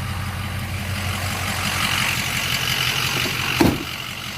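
Truck engine idling steadily and smoothly, a good-running engine with no misfire. About three and a half seconds in there is a single sharp thump.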